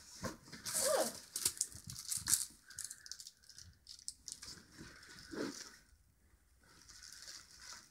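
Soft rustling, crinkling and light knocks as a toddler moves about inside a fabric suitcase, handling clothes and a paper item, busiest in the first few seconds. There is a short vocal sound from the child about a second in.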